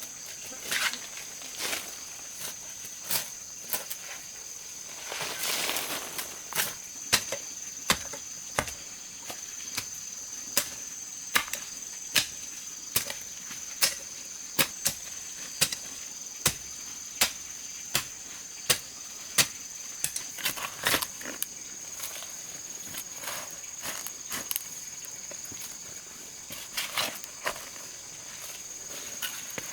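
Steady high-pitched drone of crickets or similar insects, with sharp knocks of a tool striking wood, evenly paced at a little more than one a second through the middle stretch and scattered near the start and end.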